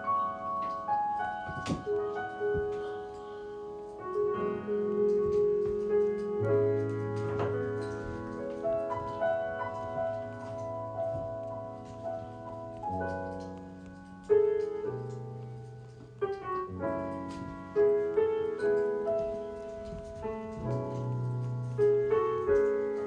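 Background piano music: gentle notes and chords with low bass notes under them, changing every second or two.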